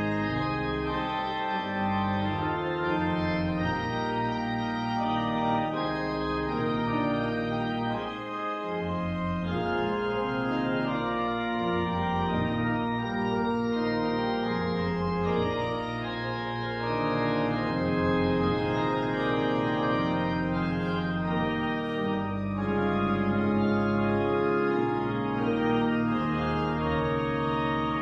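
Organ playing the postlude at the close of a church service: full sustained chords that change every second or so over a moving bass line.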